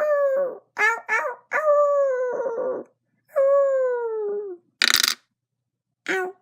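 Howling: several long drawn-out calls, each sliding slowly down in pitch. A short burst of rushing noise comes about five seconds in, and a brief call follows near the end.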